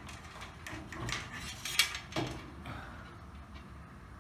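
Garage door spring safety cable and its metal hardware being handled while the cable is threaded through a fixture: a few separate clinks and knocks in the first half, the sharpest about two seconds in, then quieter rattling.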